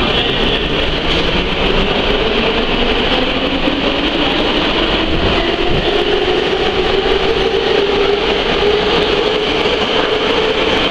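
Metro train running alongside the station platform: a loud steady rumble with a motor whine that rises slowly in pitch.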